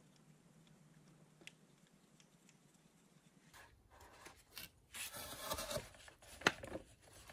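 Faint scattered clicks, then a louder stretch of rubbing and scraping with one sharp click about six and a half seconds in.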